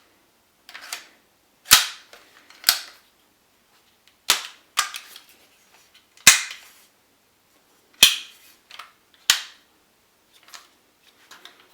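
ICS PAR MK3 blowback electric airsoft rifle firing single shots: about seven sharp cracks, a second or two apart, each with the clack of the blowback bolt cycling.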